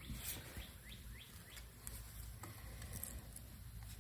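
Faint series of quick, high, rising chirps from a small bird, about four a second, fading out around halfway, over a low steady hum. A few light metal clicks from tools on the transmission are mixed in.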